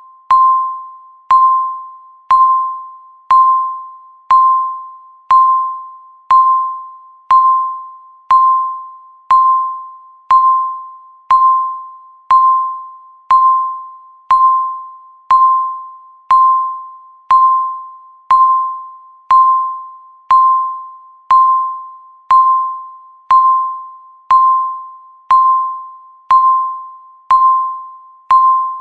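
Countdown timer beeping once every second: a single short electronic tone, repeated steadily, each beep starting sharply and fading away.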